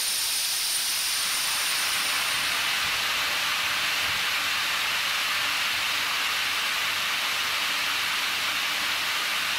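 Steady hiss of rushing compressed air from the pipe grit-blasting equipment, blown up the pipe with the grit switched off to clear the last particles.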